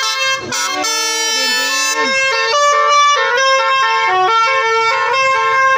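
Basuri telolet horn on a tour bus playing a tune: a quick run of loud, stepped horn notes, several pitches sounding together and changing every fraction of a second.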